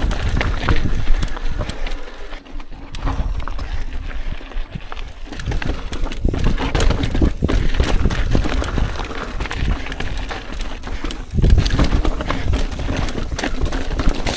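Mountain bike rolling over a rocky singletrack trail: tyres and frame clattering, with rapid irregular knocks and rattles as the bike goes over rocks.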